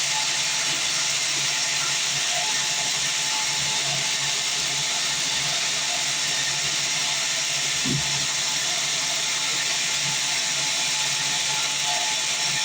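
Sawmill band saw running with a steady, loud hiss, with a faint low hum underneath and a single dull bump about eight seconds in.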